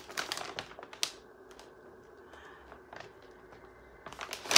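Light clicks, taps and rustles of items and packaging being handled. There is a cluster of clicks at the start, a few faint ticks in a quiet stretch, then a quicker run of clicks ending in one sharp click.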